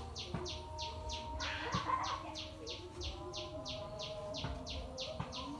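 Chick peeping over and over, a short high note falling in pitch about three times a second.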